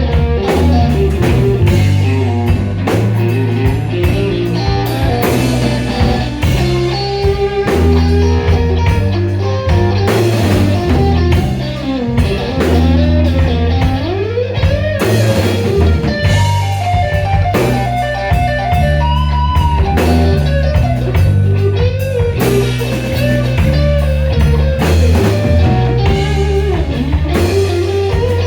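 Live slow blues played by a band: a Stratocaster electric guitar plays lead lines full of string bends over electric bass and a drum kit, with no singing.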